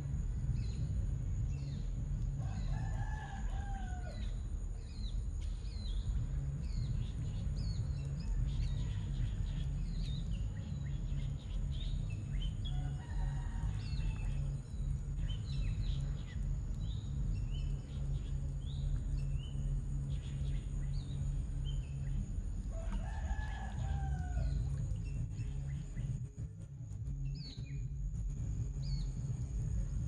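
A rooster crowing three times, about ten seconds apart, each crow about a second and a half long and falling in pitch at the end, over continual small-bird chirping and a steady low rumble.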